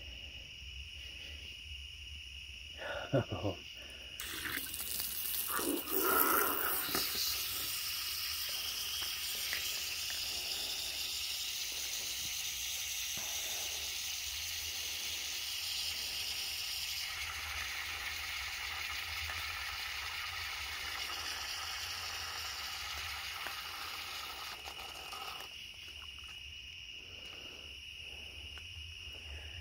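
Crickets trilling in one steady high tone. A broad hissing rush starts abruptly about four seconds in and cuts off a few seconds before the end, with two short louder sounds at about three and six seconds.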